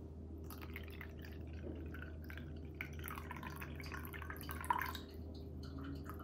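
Water being poured in a thin trickle from a glass measuring cup into a plastic egg-dye cup, with light drips, as the dye cup is topped up with water.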